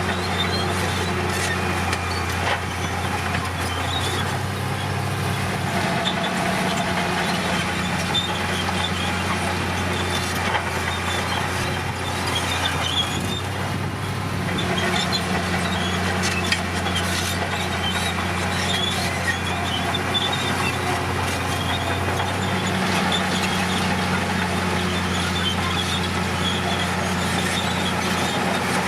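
Komatsu D60P bulldozer's diesel engine running steadily, with scattered high squeaks and clinks over it. The engine note dips for a stretch partway through, then comes back up.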